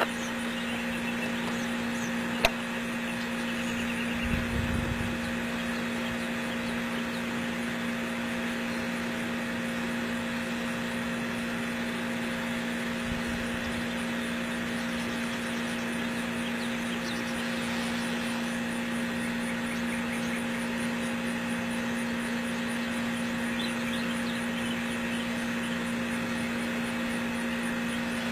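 A steady low machine hum over an even hiss, with a sharp click about two and a half seconds in and a brief low rumble about four seconds in.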